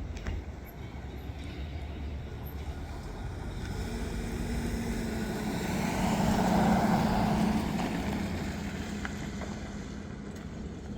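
A motor vehicle passes by, its engine hum and road noise swelling to a peak about two-thirds of the way through and then fading away, over a steady low outdoor rumble.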